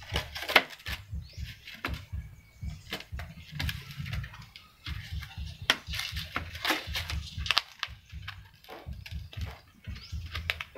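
Puppies eating from foam food trays on concrete: a busy, irregular run of clicks, smacks and scrapes from chewing and lapping and from the trays being nudged and knocked about.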